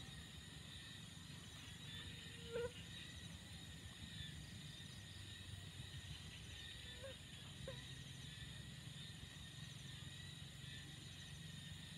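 Night insects chirring steadily over a faint low hum, with three short chirps: a louder one about two and a half seconds in and two more near the middle.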